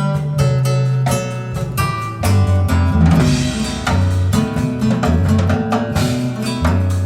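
Recorded music played over a hi-fi loudspeaker system: plucked guitar over a deep bass line that moves from note to note, with drums.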